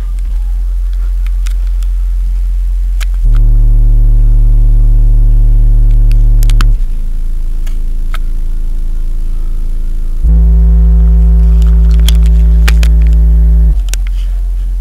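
Deep bass tones from a pair of Behringer VP1800S 18-inch PA subwoofers. Each tone is held steady for about three and a half seconds before the next takes over, and the notes from about 3 s to 7 s and from about 10 s to 14 s are the loudest. Faint clicks run throughout.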